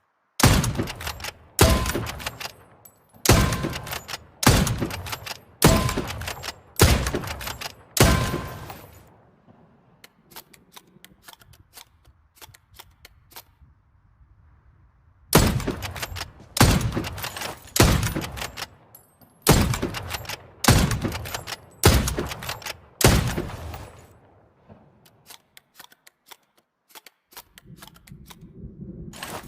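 Rifle shots fired in steady succession, about one every second and a bit, each ringing off briefly: a run of about seven, a pause of several seconds filled with small faint clicks, then another run of about seven.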